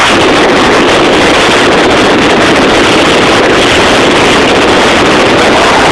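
A motor running loudly and steadily, close to the microphone.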